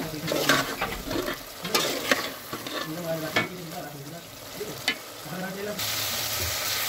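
A metal ladle stirs and scrapes chicken pieces around a metal pot, with sharp clinks and scrapes every second or so, while the chicken fries in thick oily masala. From about six seconds in, the sizzle grows louder and steadier.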